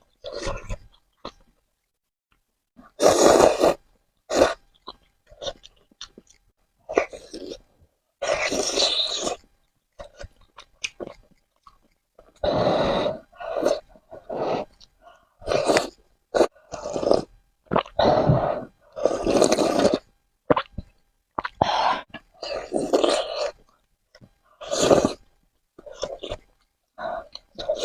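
Close-miked mouth sounds of a person eating Korean spicy noodles: chewing and eating noises in irregular bursts, some short and some about a second long, with brief pauses between.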